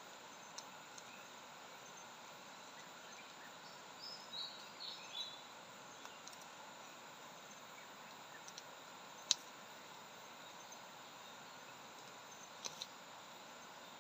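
Dry twigs and leaf litter crackling as hands pick mushrooms from the forest floor: scattered sharp clicks, the loudest about nine seconds in and a quick double click near the end, over a faint steady hiss. A few short high chirps come around four to five seconds in.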